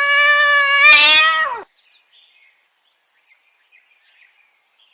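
A domestic cat's meow: one long drawn-out call held at a steady pitch, falling away as it ends about a second and a half in.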